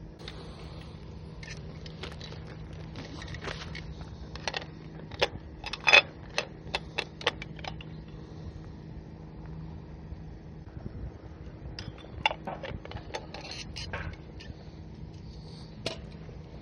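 Irregular small clicks, clinks and knocks in two bursts, the sharpest about six seconds in, over a steady low hum.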